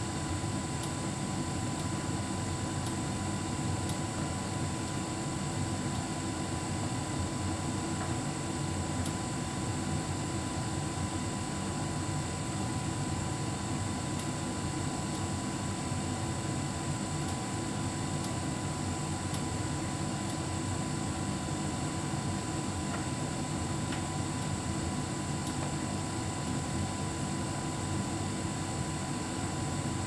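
Hotpoint heat pump tumble dryer running steadily: a constant low hum with a faint, steady high-pitched tone.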